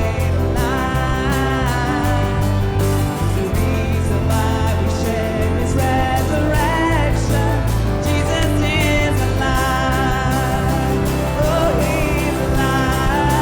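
A live church worship band playing a praise song, with a steady bass and drum beat under a singing voice.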